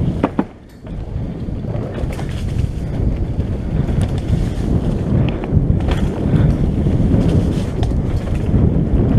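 Wind buffeting the microphone of a mountain bike riding down a rough dirt trail, with a steady low rumble and scattered sharp knocks and rattles from the bike over the ground. The rumble drops away briefly just after the start.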